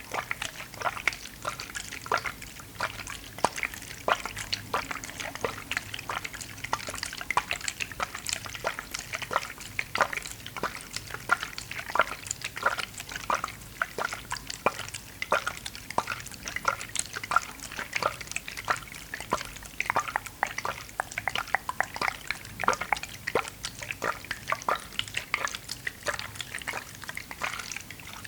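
Water sounds close to the microphone: a dense, irregular run of small wet drips and splashes, several a second.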